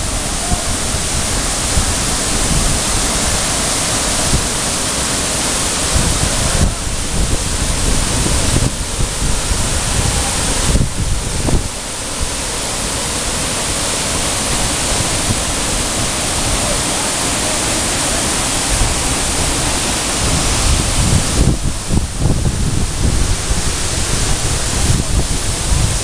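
Waterfall pouring into a rock pool close by: a loud, steady rush of falling water, with wind rumbling on the microphone.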